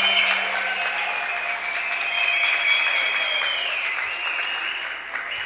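Audience applauding, an even clatter of clapping with a few long, high, held tones sounding over it.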